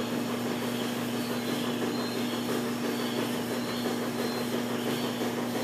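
Steady hum with one constant low tone over a soft hiss.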